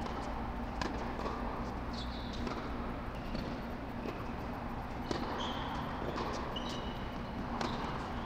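A tennis serve sequence on a hard indoor court: a few sharp ball impacts, bounces and racket strikes, spaced a second or more apart, with short, high sneaker squeaks. A steady low hum runs underneath.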